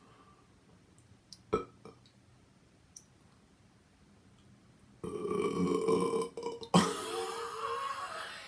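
About five seconds in, a man lets out a long burp lasting over three seconds, with a brief break partway through.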